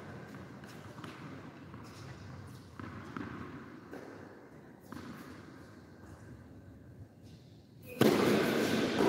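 Tennis ball bounced a few times on an indoor hard court before a serve, faint scattered thuds. About eight seconds in, a sudden loud rush of noise cuts in and keeps going.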